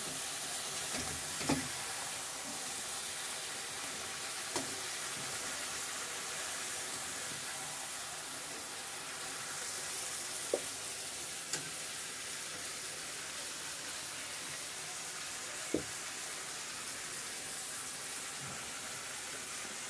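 Vegetables sizzling as they fry in a metal kadai over a gas flame while a metal spatula stirs them, with a handful of sharp clicks of the spatula against the pan.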